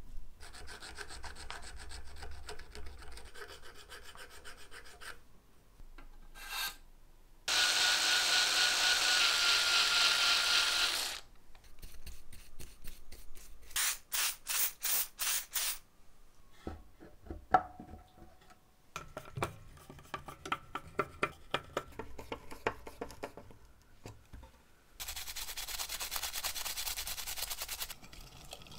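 Hand work on small cast-metal game parts: rubbing and scratchy filing strokes, a few seconds of loud steady hiss, then a run of short sharp hisses. Near the end, a steady scrubbing as a small spoked gear is worked in a bowl of liquid.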